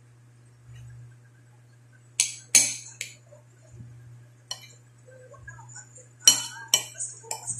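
Dishes clinking as they are handled: a few sharp clinks about two seconds in, then another cluster about six seconds in, over a faint steady low hum.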